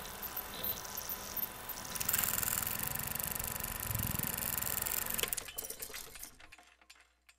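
Film projector clatter: a fast, even rattle with hiss and crackle, loudest in the middle, then thinning to scattered clicks and fading out over the last two seconds.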